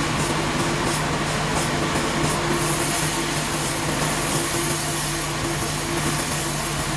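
Sawmill machinery running steadily: a constant mechanical hum with hiss, and a brighter high hiss coming in about two and a half seconds in.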